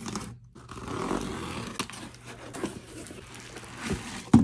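Utility knife slicing the packing tape on a cardboard shipping box, then cardboard flaps and bubble wrap rustling as the box is opened, with a few small clicks and one sharp knock near the end.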